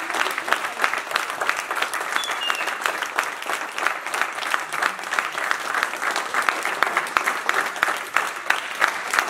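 Applause from a small group of people, many hands clapping steadily throughout.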